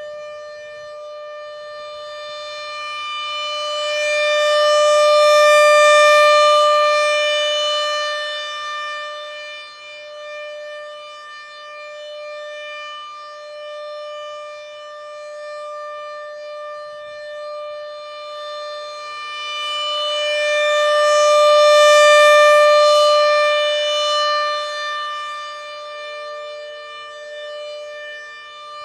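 Rotating electromechanical outdoor warning siren sounding a steady, unwavering tone. Its loudness swells and fades as the horn turns toward and away, peaking twice, about six and twenty-two seconds in.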